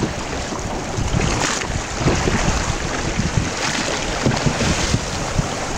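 Wind buffeting the microphone over choppy water splashing around a wooden rowing boat.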